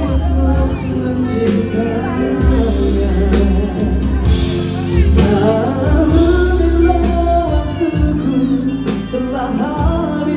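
A male nasheed vocal group singing a song through microphones and PA speakers, over a backing track with a steady bass line.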